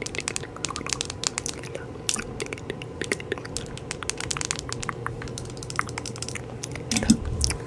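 Rapid, irregular crackling and clicking close to the microphone, over a steady low hum.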